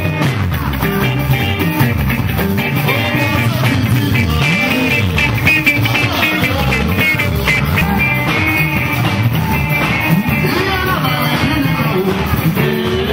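Live band music with electric guitar and a bass line that moves from note to note, played at a steady loud level.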